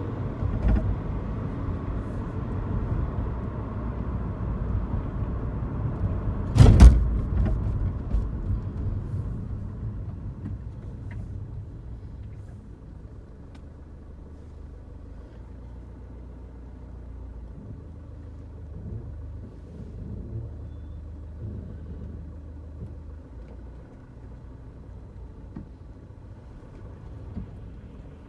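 Car road and engine noise heard inside the cabin while driving, with one sharp rattling knock from the rear of the car about seven seconds in, the loudest sound, and a lighter click near the start. The owner cannot place the rattle and suspects the boot or the sunroof. The rumble drops to a quieter level after about ten seconds.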